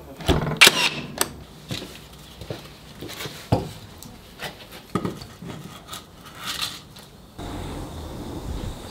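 Irregular knocks, taps and scrapes of wood being handled, the sharpest about a second in. A steady low hiss runs through the last second and a half.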